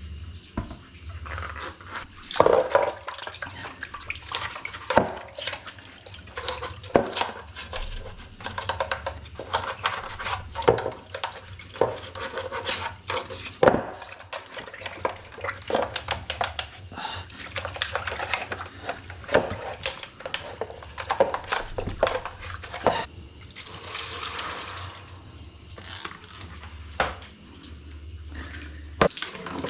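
Washing-machine parts being washed with water: irregular knocks and clatters as the parts are handled, with splashing. About two-thirds through there is a short hiss of running or sprayed water.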